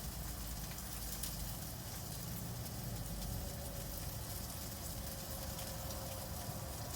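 Steady faint crackling hiss with no distinct events, and a faint thin tone in the middle.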